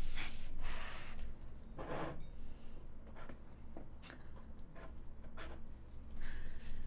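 Soft rustling of paper and a book being handled at a desk, with a few light taps and clicks; the loudest rustle comes about two seconds in.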